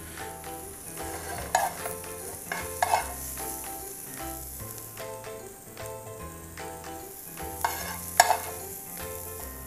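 Hot sautéed diced vegetables sizzling as a spoon scrapes and taps them out of the pan onto a plated aubergine slice. There are a few sharp clicks of metal, the loudest about eight seconds in.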